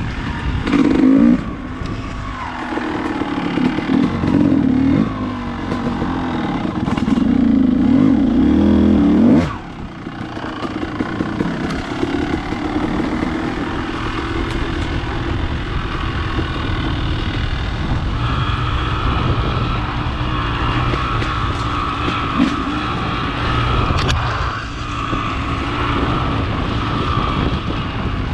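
Dirt bike engine running along a rough trail at low speed, with louder bursts of throttle about a second in and again for a couple of seconds before the revs drop off sharply about a third of the way through, then running steadier.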